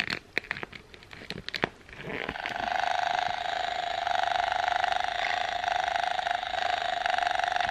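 A few handling clicks and rustles as the plush toy is pressed, then about two seconds in the Petstages Purr Pillow Kitty's touch-activated electronic purr starts: a steady, rapidly pulsing purr that keeps going.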